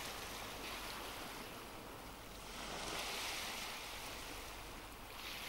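Gentle surf: a soft hiss of waves washing ashore, swelling to a peak about halfway through and fading again.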